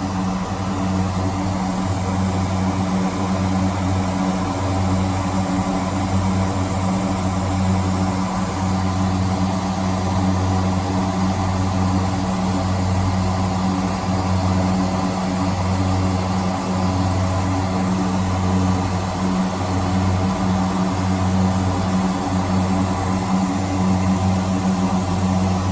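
Garrett TPE331 turboprop engines and propellers of an SA227 Metroliner running steadily at reduced power during a ground run, heard from the cockpit: a low drone with a slow pulsing beat.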